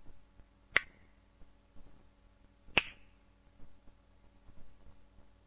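Two sharp finger snaps about two seconds apart, the first under a second in and the second near three seconds in, each marking another death.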